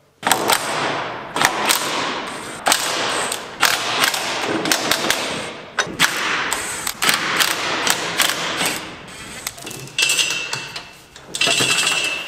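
Impact wrench hammering in repeated bursts of rapid rattling, loosening the bolts that hold the auger's motor and gearbox. The last two bursts carry a high metallic ring.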